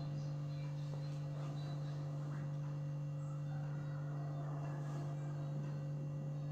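Steady low electrical hum, with a few fainter, higher steady tones above it.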